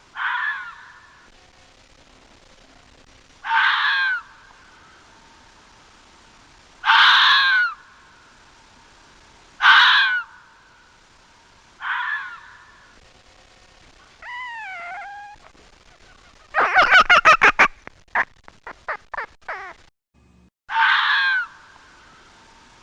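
Fox calling: a harsh, screaming bark repeated every two to three seconds. About halfway through comes a wavering call, then a rapid stuttering chatter of short pulses lasting about three seconds, and one more bark near the end.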